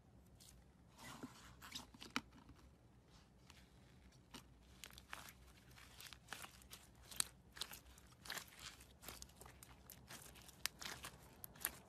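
Clear slime mixed with cut sponge cubes, squeezed and kneaded by hand: quiet, irregular crackling clicks, with a few louder crackles in the second half.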